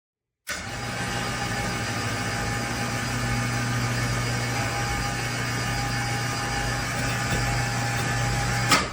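Electric hoist winch motor running steadily, with a low hum and a fainter higher whine. It starts abruptly about half a second in and stops suddenly near the end.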